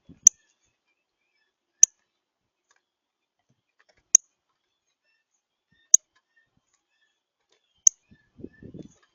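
Five sharp, high clicks about every two seconds, with a brief low rustling rumble near the end.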